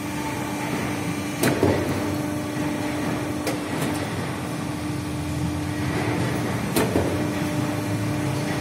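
Pipe swaging machine running with a steady hum while its segmented expander opens out the end of a bent metal pipe, with a few sharp metallic knocks, the loudest about a second and a half in and again near seven seconds.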